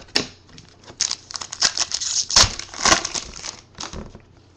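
Crinkling and tearing of a trading-card pack wrapper as it is opened and handled, mixed with light clicks of cards. The crinkling is densest and loudest from about a second in to past the middle, then tails off.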